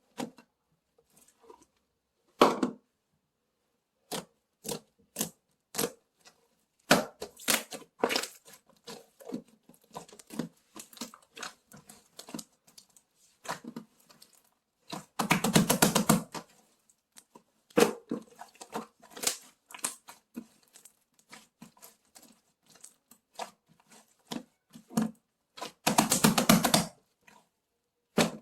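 Sky-blue cloud slime being played with, giving off scattered sharp clicks and pops, with two longer runs of dense crackling about halfway through and near the end.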